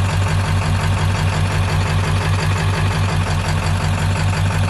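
A 7.3 L Power Stroke turbo-diesel V8 in a 1996 Ford Bronco idling steadily at low idle, around 700 rpm.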